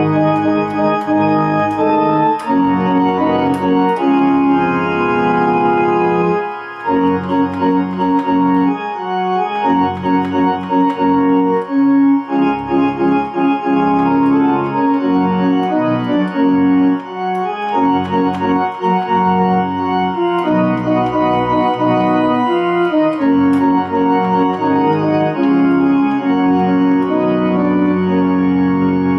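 Kimball electronic home organ playing a gospel hymn: full chords held and changed in a steady tempo over low bass notes, with brief breaks between phrases.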